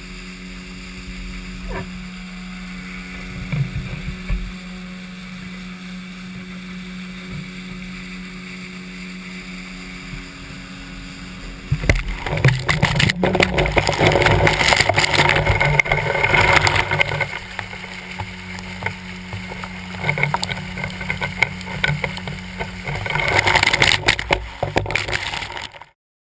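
Yamaha 9.9 hp outboard motor running steadily at speed for about the first twelve seconds. Then loud rushing, splashing water from the boat's wake, with the camera down in the water, takes over until the sound cuts off abruptly near the end.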